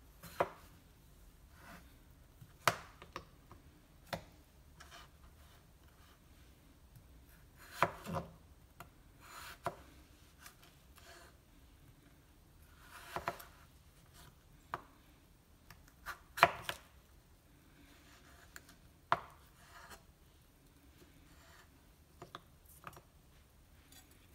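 Chef's knife slicing peeled raw potatoes into thin long strips: irregular sharp knocks of the blade meeting the cutting surface, a second to several seconds apart, with a few softer, drawn-out sounds of the blade passing through the potato.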